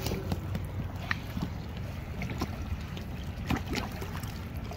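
Small waves lapping and splashing irregularly against the rocks of a seawall, over a steady low rumble.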